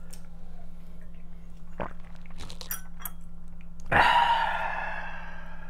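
A man swallowing a drink from a can, with faint small clicks, then about four seconds in a loud, breathy, satisfied "ahh" after the drink that fades over a second or so.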